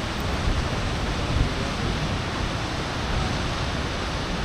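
Wind buffeting the microphone: a steady rushing noise with a gusty low rumble.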